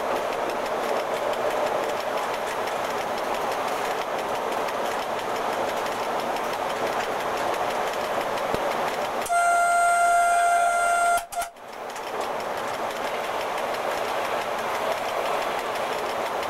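FS E.656 electric locomotive running at speed, heard from the cab: steady rolling noise of wheels on rail. About nine seconds in, the locomotive's horn sounds one steady blast of about two seconds, the loudest sound here, cutting off sharply, followed by a brief dropout before the rolling noise resumes.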